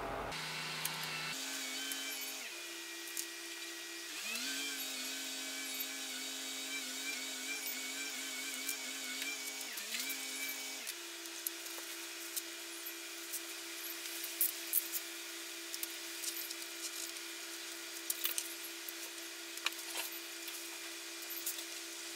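Machinery whining steadily from stones being unloaded next door, its pitch sweeping up twice in the first half. Small clicks and rustles of clear adhesive film being pressed onto a wooden door edge come through, more of them in the second half.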